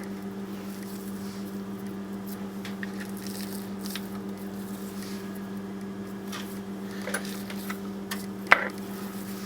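Soft squishing and light taps of sticky peanut butter cookie dough being handled and set onto a greased metal cookie pan, with one sharper tap about eight and a half seconds in, over a steady low hum.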